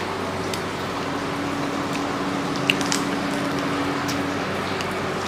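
Wet eating sounds of masala rice and prawn curry eaten by hand: squishy chewing and mixing of rice, with scattered small clicks over a steady background hum.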